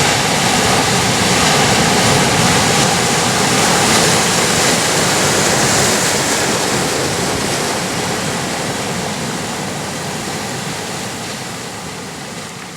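Atlantic surf breaking on rocks: a continuous rushing wash of waves, loudest a few seconds in and then growing steadily fainter.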